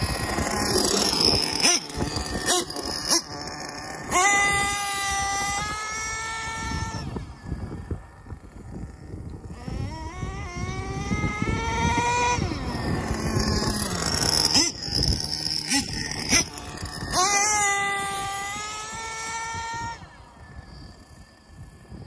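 Nitro RC truck's OS .21 two-stroke glow engine with a Varossi tuned pipe, revving hard and high-pitched as the truck speeds down the road and back. The pitch rises and falls with the throttle, and the sound is loudest twice and fades near the end as the truck runs off into the distance.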